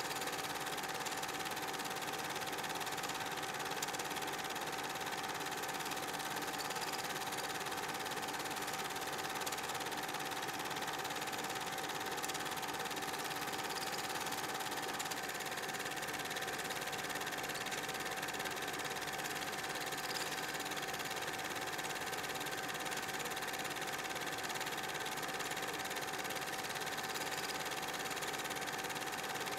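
Film projector running steadily, a constant mechanical whirr with a thin steady tone, heard as the silent Super 8 film plays.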